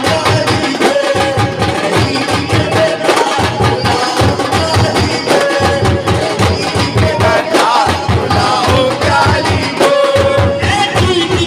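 A man singing a devotional song over a microphone, with a steady beat of hand-struck frame drums (daf).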